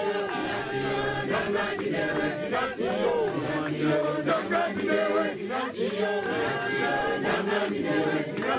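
A congregation singing a Shona hymn together without instruments, many voices in harmony.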